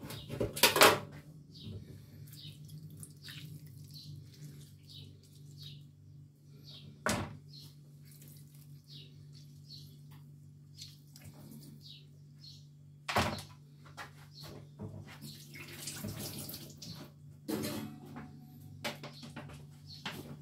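Handling at a kitchen sink: four sharp knocks and clatters, the loudest right at the start, and a short spell of water splashing in the sink. A low steady hum and faint repeated high chirps run underneath.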